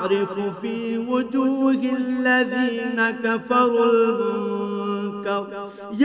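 A man reciting the Qur'an in Arabic in melodic tajweed style, holding long, ornamented notes.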